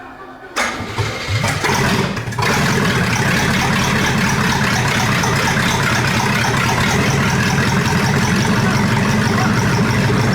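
Chevrolet 283 small-block V8 on its first start. It cranks, catches about two seconds in, then runs steadily.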